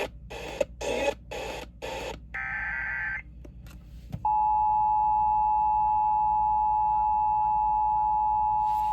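Broadcast audio chopping into pulses of static, about two or three a second, followed by a short burst of warbling data tones. About four seconds in, after a click, the Emergency Alert System two-tone attention signal starts and holds steady: the alarm that opens a warning.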